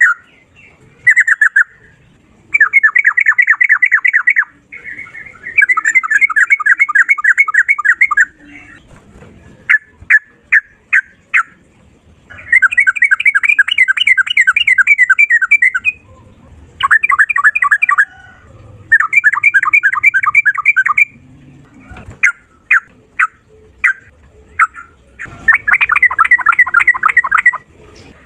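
A male yellow-vented bulbul (trucukan) singing loudly in rapid-fire runs (ropel) of fast repeated notes, each run lasting one to three and a half seconds. Between the runs come single short chirps.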